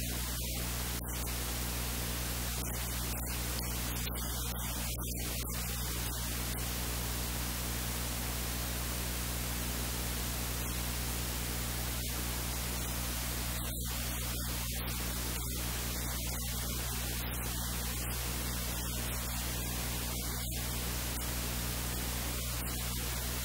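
Steady hiss of recording static with a low electrical mains hum underneath, unchanging throughout.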